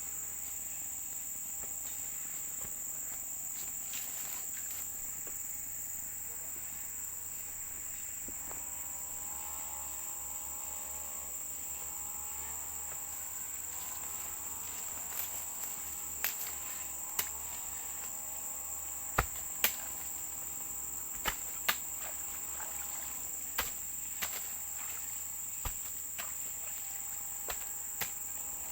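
A steady, high-pitched insect drone, cricket-like, with the faint wavering engine note of a grass-cutting machine running some way off. From about halfway, about a dozen sharp knocks come at irregular intervals.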